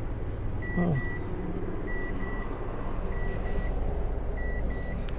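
Electronic vehicle warning chime beeping in pairs, about one pair every 1.2 seconds, over a low steady hum.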